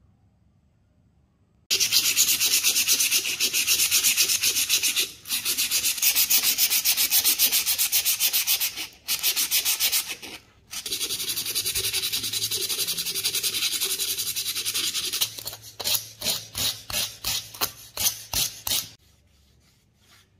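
Sandpaper rubbed by hand over a small rusty steel pistol part, scouring off the rust. It starts about two seconds in with rapid back-and-forth strokes broken by a few short pauses, then slows to separate strokes near the end before stopping.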